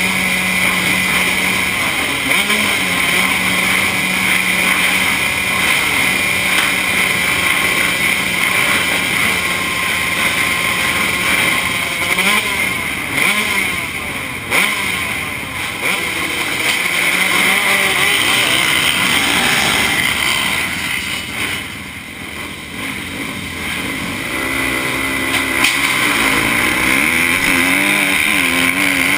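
Motocross bike engines idling and being revved on the starting line. About three-quarters of the way through, the field goes to full throttle as the race starts, with the rider's own Yoshimura-piped Honda CRF250 four-stroke climbing through its revs.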